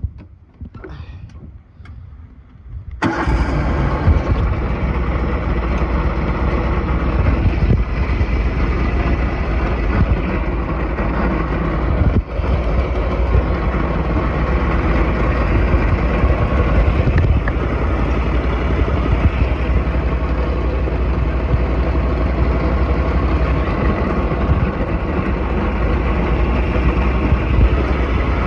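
Riding lawnmower engine starting up about three seconds in, then running steadily.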